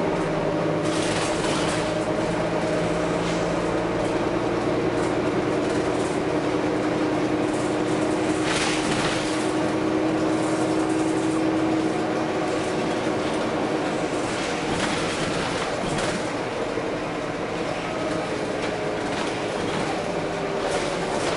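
Volvo B9TL double-decker bus running, with a steady engine and drivetrain whine that drifts slowly in pitch. Several short hisses of air are released from its air system.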